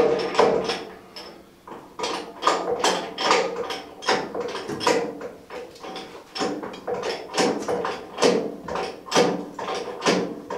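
Repeated mechanical clicks and clunks, roughly two a second, from a ratchet strap and jack being worked to put tension on a bent chassis and twist it back straight.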